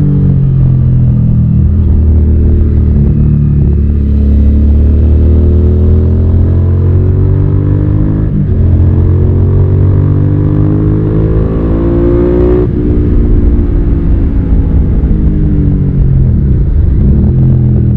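Suzuki SV650's 645 cc V-twin engine accelerating hard, its pitch climbing through the revs and dropping sharply at two upshifts, about 8.5 and 12.5 seconds in. Afterwards the revs fall away as the throttle eases off, then pick up again near the end.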